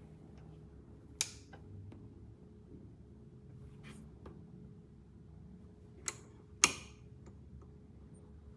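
Record player with the platter turning and no music playing: a faint steady hum and low rumble, broken by a few sharp clicks as the tonearm and controls are handled, the loudest near seven seconds in.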